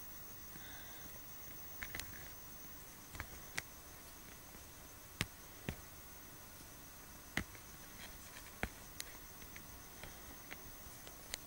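About a dozen small, sharp clicks and taps at irregular times, from one-month-old kittens' paws and claws scrabbling on bedding and toys. Under them runs a steady hiss.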